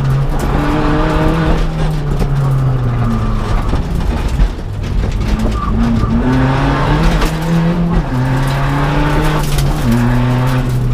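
Seat Ibiza TDI rally car's turbodiesel engine, heard from inside the cabin, accelerating hard. Its pitch climbs and falls repeatedly, dropping sharply as it changes gear about eight seconds in and again near the end.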